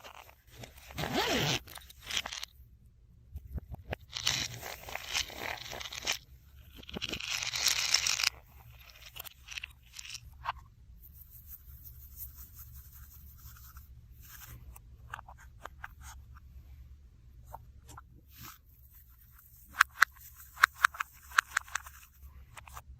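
Hands working slime materials: scraping, crunching strokes in several bursts, the longest ending about eight seconds in. Near the end comes a run of small sharp clicks.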